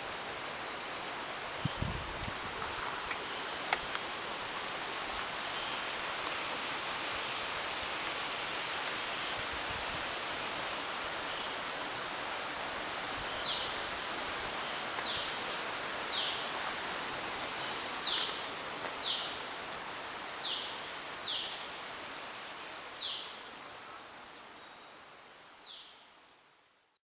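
Rain forest ambience: a steady hiss of insects. In the second half, a bird gives a run of short, high, falling calls about once a second. It all fades out near the end.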